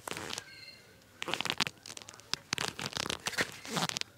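A dense, irregular run of clicks, scrapes and light knocks, with a brief faint ringing tone about half a second in.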